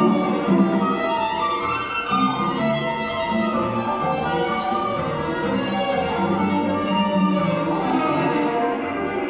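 String quartet music: violin and other bowed strings playing a busy run of short notes at a steady level.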